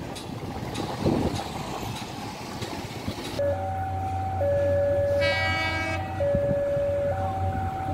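Street traffic noise, then a level-crossing warning alarm alternating between two electronic tones about once a second over a low steady hum. An approaching train sounds its horn once, briefly, about five seconds in.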